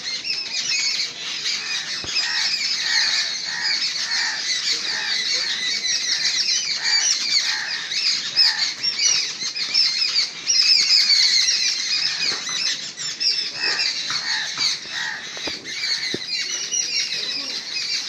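A flock of birds calling harshly and without pause, many short notes overlapping: the alarm chorus of birds mobbing a perched owl.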